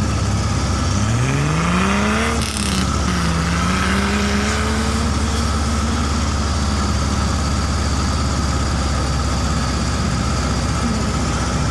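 Off-road vehicle engine revving up, its pitch climbing over about two seconds, then dipping briefly and holding at steady high revs under load.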